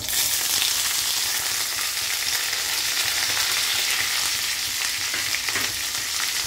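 Chopped onion, green chillies and curry leaves hitting hot oil in a kadai: a sudden sizzle as they go in, then a steady frying hiss.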